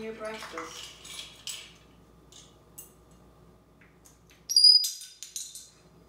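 African grey parrot rummaging in his stainless-steel food bowl. About four and a half seconds in there is a sharp metallic clink with a brief high ring, the loudest sound, followed by a few lighter clicks.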